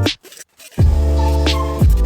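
Background music with a beat and deep bass that drops out for about half a second near the start, then comes back in.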